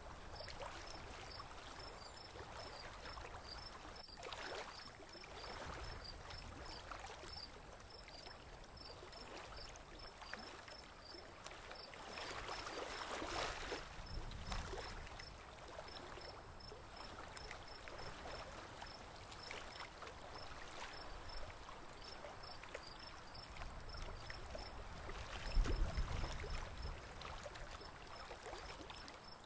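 Water rushing and splashing along the hull of a moving boat as its wake breaks, rising and falling in swells. A low rumble swells briefly near the end, and a faint, rapid high-pitched ticking runs underneath.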